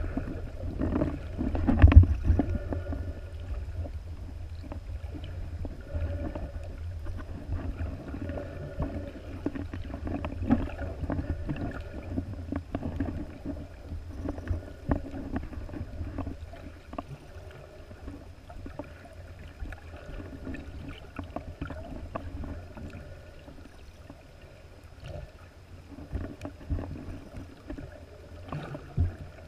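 Muffled underwater sound picked up by a camera in a waterproof housing: a steady low rumble of water moving around the housing, with one sharp knock about two seconds in.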